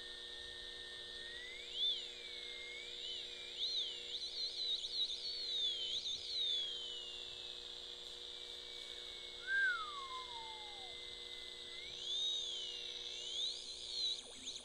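Circuit-bent clock radio's speaker putting out a whistling electronic tone that warbles and glides up and down in pitch, with a long falling sweep in the middle and a short falling chirp about ten seconds in, over a steady hum.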